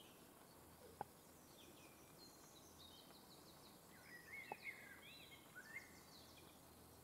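Faint songbird calls: a run of quick high chirps, then warbling phrases, over a quiet outdoor background. Two short sharp clicks, about a second in and about four and a half seconds in.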